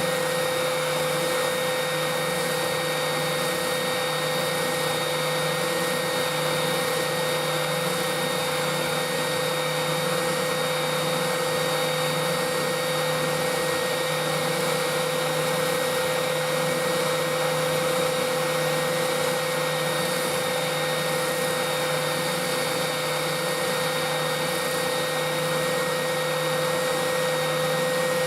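Workshop sander running steadily as a wooden guitar part is sanded down: a constant motor whine over an even hiss.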